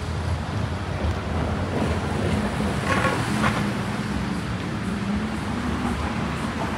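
City street traffic noise: a steady low rumble of vehicle engines, with a brief pitched sound about three seconds in.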